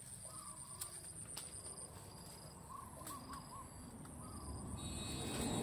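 Outdoor ambience of insects chirping in a fast, even, high-pitched trill with repeated short chirps, and a few short bird calls. There are a few light clicks, and a low rumble builds near the end.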